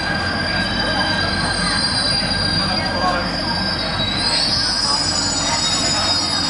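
Shanghai Metro Line 2 train running between stations, heard inside the car: a steady rumble with high, drawn-out wheel squeal. Some of the squeal tones glide up in pitch a little past halfway.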